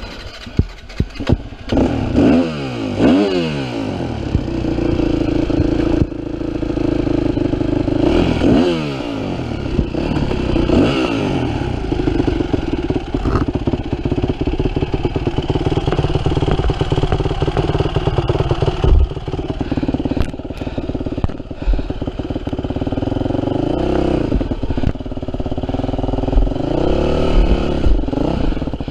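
Yamaha WR250F four-stroke single-cylinder dirt bike engine revving up and down over and over as it is ridden on a trail, with rattles and knocks from the bike over rough ground.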